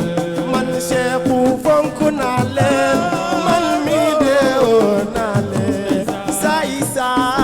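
Live Senegalese assiko music: a lead voice sings wavering, ornamented melodic lines over drums.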